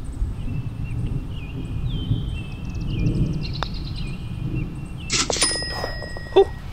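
Putter striking a golf ball with a light click, then about a second and a half later the ball dropping into the metal hole cup with a clatter and a ringing clang: a holed putt. Wind rumble and birdsong underneath.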